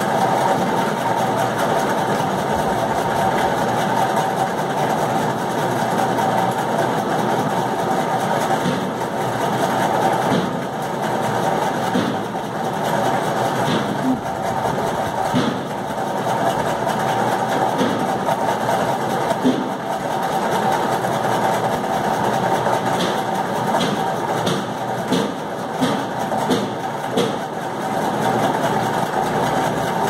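A steady mechanical hum like a running motor, with short scratchy strokes of a pencil on paper in the second half.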